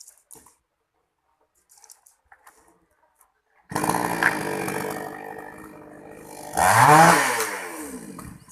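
Two-stroke chainsaw engine that starts abruptly about a third of the way in and runs, then is revved up and back down once near the end before dying away.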